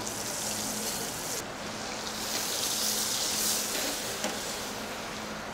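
Hot brown butter sizzling as it is spooned over a just-seared pork chop, a high hiss in two stretches, the first stopping about a second and a half in and the second starting about half a second later, over a steady low hum.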